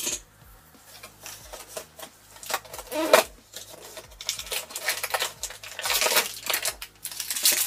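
Plastic packaging crinkling and rustling, with scattered small clicks and taps, as a small toy figure is unwrapped and handled; one sharper, louder crackle about three seconds in and denser rustling through the second half.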